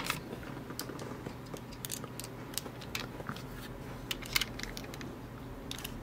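Light scattered clicks and rattles of small steel screwdriver bits being handled in a plastic bit case and one fitted into a precision screwdriver, with a sharper click at the start and another about four and a half seconds in.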